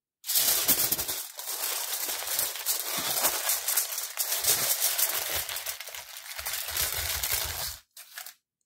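Aluminum foil crinkling and crumpling as it is folded and pressed tightly around a sub sandwich by hand. It stops abruptly about a second before the end.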